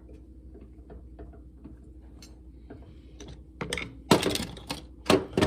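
Small metal bicycle hub parts and hand tools clicking and clattering as a BMX rear hub is worked apart. It starts as light scattered clicks, then turns into several loud, sharp clatters in the last two seconds or so.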